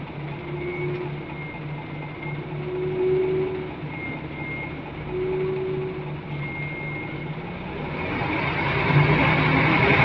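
Interior of a Scania L94UB single-deck bus: a steady low engine hum with a strange whirring whine that swells and fades about every two seconds. About eight seconds in, the engine and road noise grow louder.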